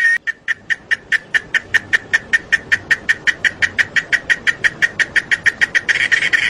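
Cicadas singing: the steady buzz breaks into a long run of rapid pulsed chirps, about five a second and quickening slightly, and near the end a continuous buzz rises again beneath the pulses.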